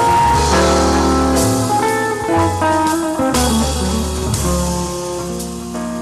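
Hollow-body electric guitar playing a slow jazz ballad in chord-melody style: sustained chords over low bass notes, with the melody on top.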